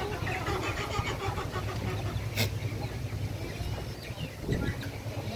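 A steady low engine-like hum, with light clicking over the first couple of seconds, one sharp knock about halfway, and a few short high calls near the end.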